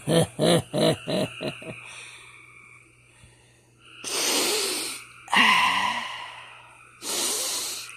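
A man's voice: a quick run of about seven short laugh-like bursts, then, after a pause, three long breathy, wheezing exhalations.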